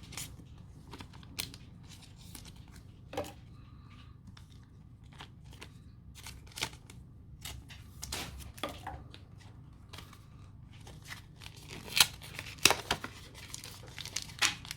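Foil wrapper of a Pokémon card booster pack crinkling and tearing as it is opened and handled, in scattered crackles that grow busier and louder near the end.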